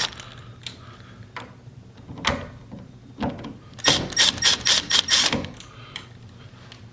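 Screwdriver backing the screws out of a door's ball catch: a few separate clicks, then a quick run of clicks about four seconds in.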